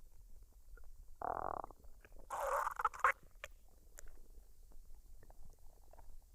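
A woman's stomach gurgling as it digests a meal just eaten: a gurgle about a second in, then a louder, longer one about two seconds in that ends in a couple of sharp pops, among faint scattered squelches.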